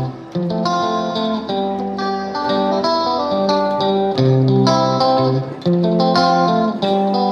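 Instrumental background music: a plucked guitar melody over bass notes.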